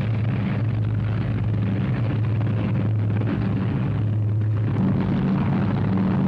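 Heavy bomber's piston engines droning steadily in flight: a dense, even rumble with a low hum through it.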